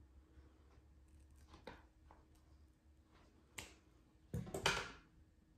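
Scissors snipping through an anthurium's mushy roots: a few sharp, separate snips, then a louder cluster of clicks and rustling about four and a half seconds in.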